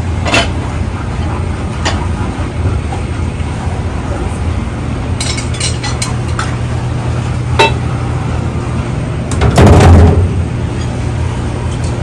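Dishes and plates clinking now and then as they are handled at a restaurant dish station, over a steady low hum of kitchen machinery. About ten seconds in, a louder, noisier clatter lasts about a second.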